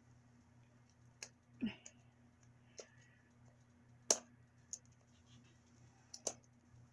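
Scattered small clicks and taps of hands working at small plastic packaging to get it open, one sharper click about four seconds in, over a faint steady hum.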